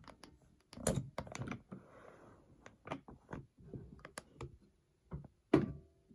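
Irregular light clicks and taps of hands handling a small plastic sewing machine at its thread spool and bobbin winder, with one sharper click and a brief ring near the end.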